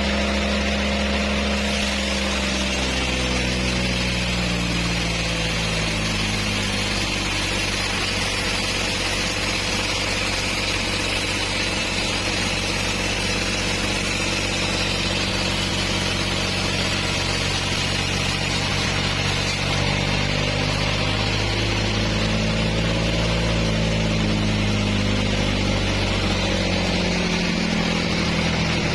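Engine-driven band sawmill running while sawing a trembesi (rain tree) log. The engine's pitch sags slowly and recovers, and a steady hiss sits above it.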